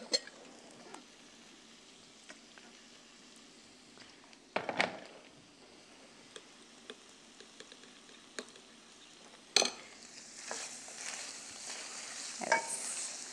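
Diced beef and onions frying in a stainless steel pot, a soft sizzle broken by a few sharp spoon clinks. From about ten seconds in the sizzle grows louder as a wooden spoon stirs the pot.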